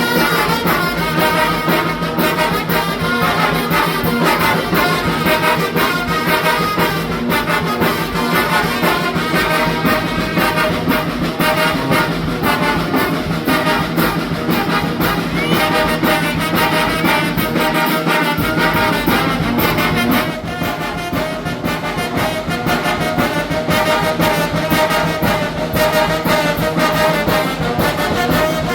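Mexican brass band (banda) playing a huapango, with trumpets and trombones carrying the tune. The music plays continuously and gets a little softer about two-thirds of the way through.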